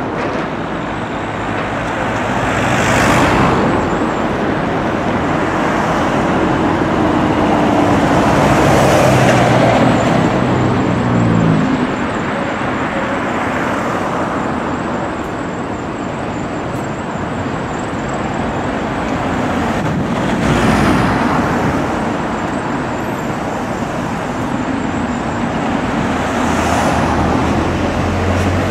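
Diesel single-deck buses pulling away from a bus station, with cars passing several times. An Optare Solo's engine climbs in pitch as it accelerates away in the first half, and a Scania single-decker's engine runs with a low steady hum close by near the end.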